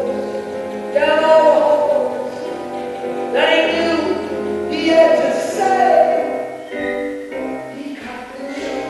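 Live song: a voice singing long, held phrases over acoustic guitar. Near the end the singing drops away and the guitar goes on alone.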